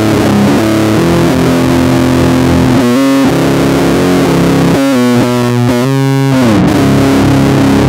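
Electric bass guitar played fingerstyle in a metal riff, held low notes with a short run of higher notes about three seconds in and another from about five to six seconds in.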